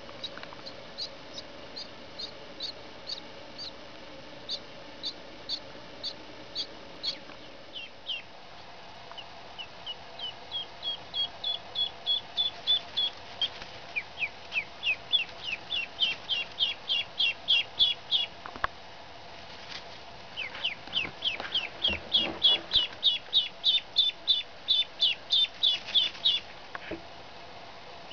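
Three-day-old Blue Swedish and Buff Orpington ducklings peeping: single high peeps about two a second at first, then from about ten seconds in louder, faster strings of several peeps a second, broken by a short pause a little past halfway.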